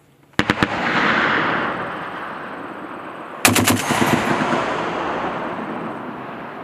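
M2 Browning .50-calibre heavy machine gun firing two short bursts of about four or five rounds each, about three seconds apart. Each burst is followed by a long echo that slowly dies away.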